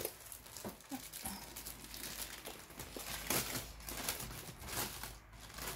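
Plastic wrapping around a rolled diamond-painting canvas crinkling and rustling in irregular bursts as hands handle and unwrap it.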